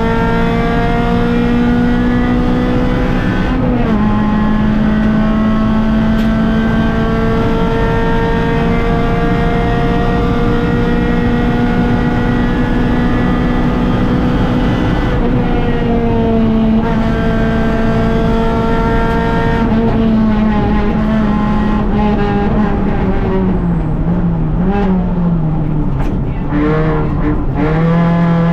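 Rally car engine heard from inside the cockpit, held at high, steady revs for most of the stretch, dipping briefly about four seconds in as it shifts up. Near the end the revs drop and rise several times through braking and downshifts, with a few sharp cracks, then climb again.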